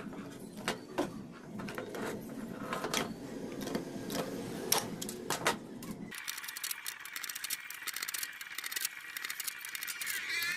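Small steel bolts and washers on a metal burner ring clinking and clicking as the burner is handled and turned. About six seconds in, this gives way abruptly to a steadier, higher hiss with rapid ticking.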